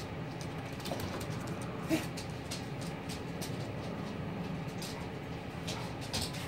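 Dogs moving about on a wooden plank floor, their claws clicking lightly, over a steady low hum; one brief sharp sound about two seconds in.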